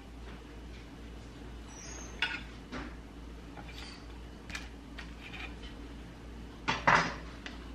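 A table knife scraping over a toasted English muffin and clinking against a plate in scattered light strokes, with the loudest clatter near the end.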